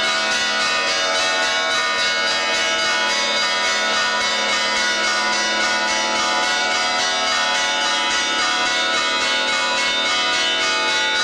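Church bells ringing a continuous, loud peal, many rapid strokes overlapping into a steady clangour.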